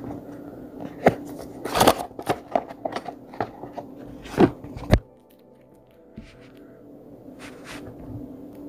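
Cardboard phone box and a plastic-wrapped smartphone being handled: a quick run of clicks, taps and scrapes, loudest just after one second and around four and a half seconds, cutting off suddenly about five seconds in. Faint background music is left after that.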